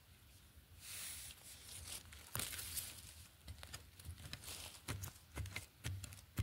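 Small metal hand trowel scraping and digging into dry soil and leaf litter, starting about a second in, with repeated scrapes, rustling and several sharp strikes of the blade.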